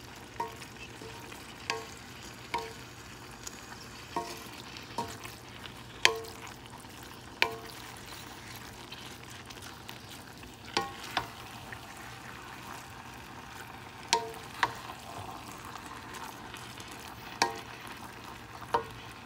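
Ground meat and pasta sizzling in a metal pan as a spoon stirs them. The spoon knocks against the pan about a dozen times at uneven intervals, and each knock gives a brief ringing tone.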